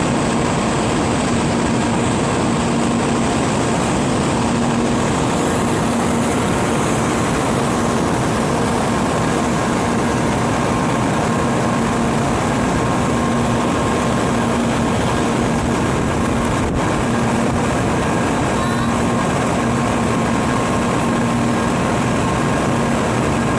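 Shinkansen bullet train standing at the platform, giving a steady mechanical hum with faint droning tones that fade in and out, with no build-up or fade of an arrival or departure.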